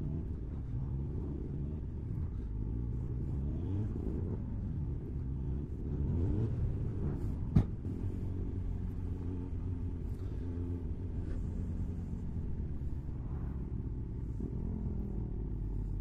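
Kawasaki Ninja ZX-9R's inline-four engine running on the move, its pitch rising and falling with the throttle over a low rumble, a little louder partway through. A single sharp click about seven and a half seconds in.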